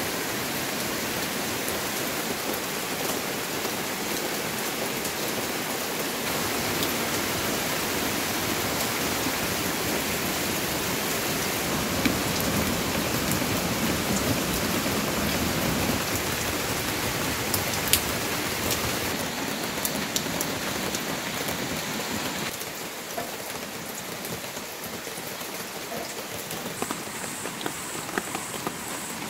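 Steady rain falling, an even hiss with scattered sharper drop hits; it gets a little softer about three quarters of the way through.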